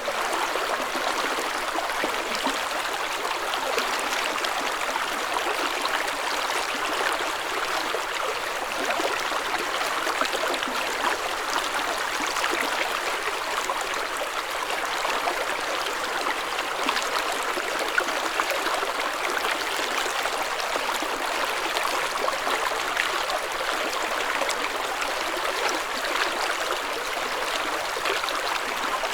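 Spring water flowing in a small stream: a steady babble of water with many small splashes and trickles, even in level throughout.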